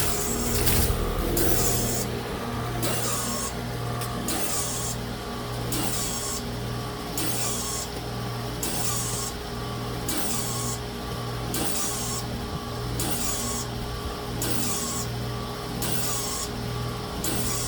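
Carrier 25HPB630A300 heat pump running with a low hum and a hissing rush that pulse together about once a second, over a steady tone. This is the abnormal noise the unit makes below freezing, which grows longer and louder the colder it gets.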